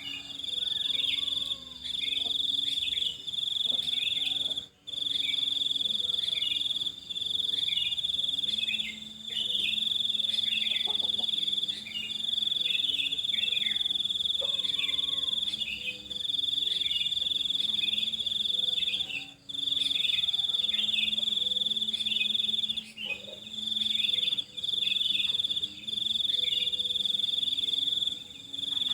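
A steady, high-pitched cricket trill runs in long stretches, breaking off briefly every few seconds. Under it, birds give many short, falling chirps.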